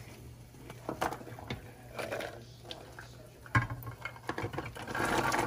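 Jackfruit seeds tipped from a plastic dish into a pot of boiling water: scattered light knocks at first, a sharp knock about three and a half seconds in, then a quick run of plops and splashes as the seeds slide into the water near the end.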